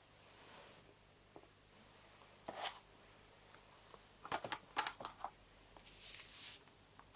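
Small toy parts being handled: scattered light clicks and knocks, a quick cluster of them about four to five seconds in, and a short rustle near the end.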